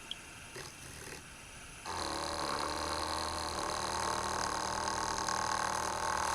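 JoolTool benchtop polishing machine's motor coming on about two seconds in and running at low speed, a steady hum with a higher whine over it, turning the 3000-grit diamond polishing disc.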